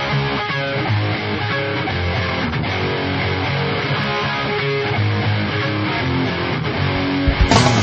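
Background music led by guitar. Near the end it moves into a louder, fuller section with a heavy low beat.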